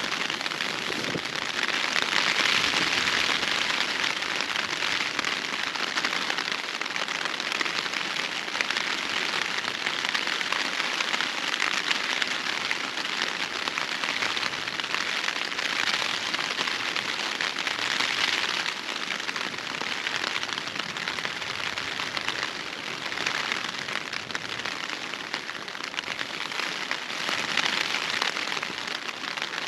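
Heavy rain drumming steadily on the fabric of a Hilleberg Unna tent, heard from inside, swelling and easing every few seconds.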